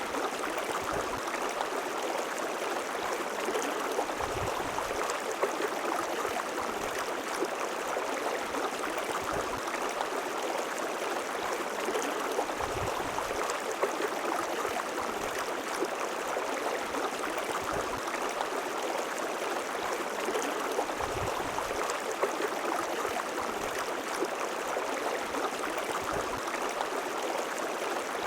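River water flowing steadily, an even splashing noise, with soft low swells every few seconds.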